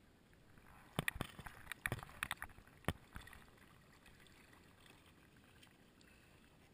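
Kayak paddling on the water: faint water noise around the plastic hull, broken in the first half by a quick run of sharp knocks and splashes, about half a dozen in two seconds.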